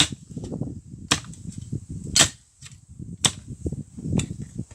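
Repeated sharp blows of a hand tool during garden work, five strikes about a second apart, with scraping and rustling between them.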